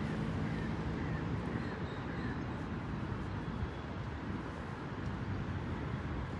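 Steady low rumble of outdoor background noise, like distant traffic, with a few faint short high chirps.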